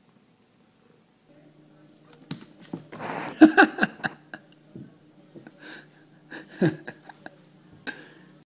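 A person laughing under their breath in short, breathy bursts, loudest about three seconds in and again near seven seconds, over a steady low hum.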